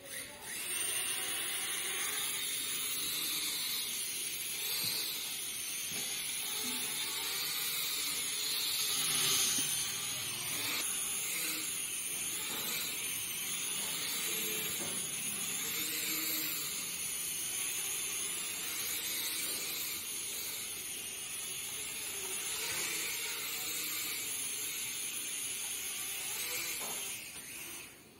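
Toy mini quadcopter's small motors and propellers whirring in flight, a high whine over a steady hiss that wavers up and down as the throttle changes.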